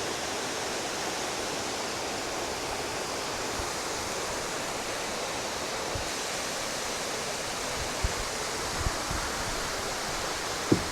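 Waterfall rushing: a steady, even wash of falling water, with a few soft low thumps in the second half.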